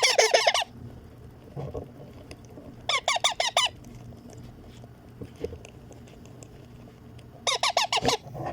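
Indian ring-necked parakeet chicks giving food-begging calls while being hand-fed: three short bursts of fast, repeated notes, each under a second long, at the start, about three seconds in, and near the end.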